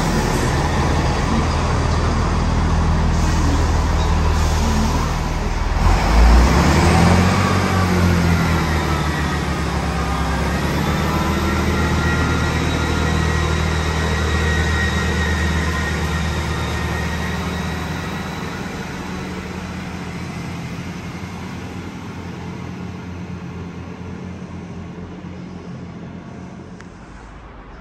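Transport for Wales Class 158 diesel multiple unit pulling away from the platform: its underfloor diesel engines run hard and rise in pitch as it accelerates, loudest about six seconds in, then fade steadily as the train draws away.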